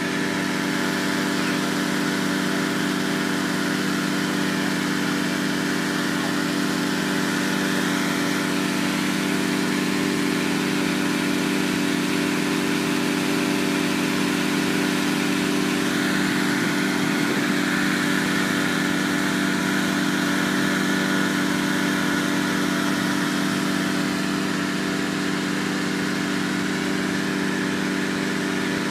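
Engine-driven inflator fan running steadily at constant speed, blowing cold air into a hot air balloon envelope during cold inflation.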